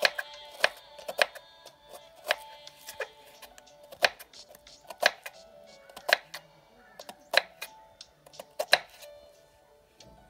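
Kitchen knife slicing red onions on a wooden cutting board: sharp, irregular chops about one or two a second, stopping shortly before the end. Background music plays underneath.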